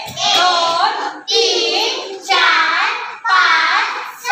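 Young children chanting numbers aloud in unison, one count about every second, four counts in all, as they count objects up to seven.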